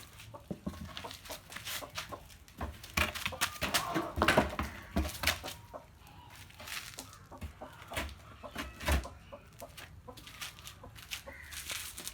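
Chicken clucking repeatedly, with scattered short knocks and clicks throughout; the busiest stretch of calls comes about three to five seconds in.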